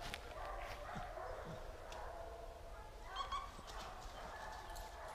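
Hog-hunting hounds barking and baying, faint, the sign that the dogs have found a hog. The clearest call comes about three seconds in.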